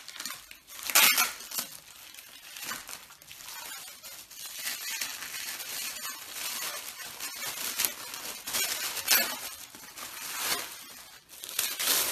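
Plastic film and bubble wrap crinkling and crackling as they are pulled and peeled off by hand, with irregular sharp crackles throughout.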